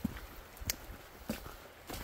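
Footsteps of a hiker walking at a steady pace, about one and a half steps a second.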